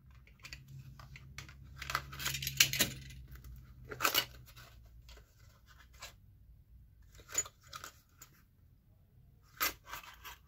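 A utility knife slitting the tape on a small cardboard box, in a quick run of short scraping cuts about two seconds in, then the cardboard being torn and pulled open, with a sharp rip near four seconds and lighter rustles and taps after.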